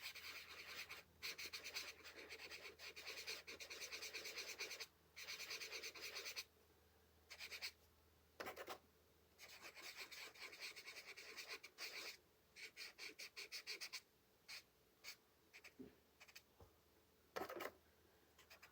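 Faint, quick back-and-forth colouring strokes rubbing on paper, in bursts of rapid strokes with short pauses between them.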